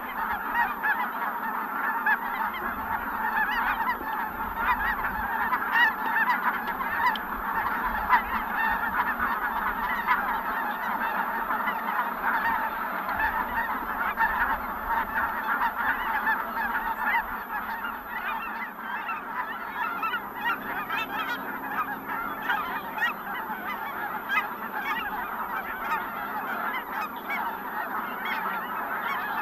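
A large flock of geese, Ross's geese among them, calling all at once in a dense, continuous chorus of overlapping honks and yelps.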